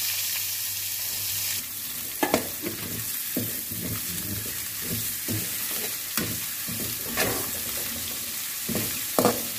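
Sliced onions sizzling in hot oil in a steel wok, with a metal slotted spatula scraping and clinking against the pan as they are stirred. The sizzle is loudest for the first second and a half, just after the onions go in. Repeated scrapes and clinks begin about two seconds in.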